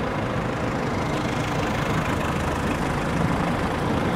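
Motor vehicle engine running in the street, a steady low rumble that grows slowly louder.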